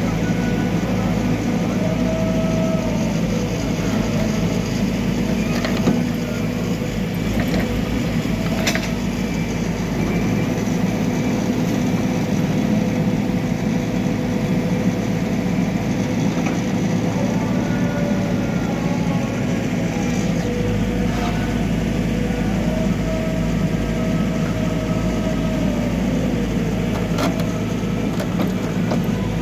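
Backhoe loader's diesel engine running steadily while working, with a few sharp knocks and clanks about 6 s, 9 s and 27 s in.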